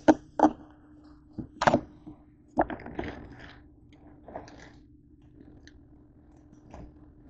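Plastic bag of frozen tater tots crinkling and rustling in a series of short bursts as it is handled and set down on the countertop, with a couple of sharp knocks near the start. A faint steady hum runs underneath.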